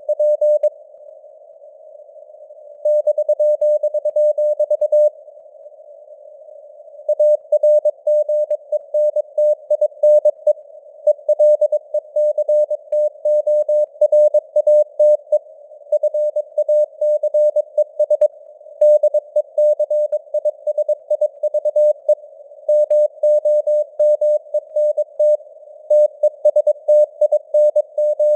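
Morse code (CW) sent at 22 words per minute as a keyed tone of about 600 Hz over a narrow band of simulated radio hiss, the signal fading in and out in strength. The keying pauses for about two seconds twice near the start.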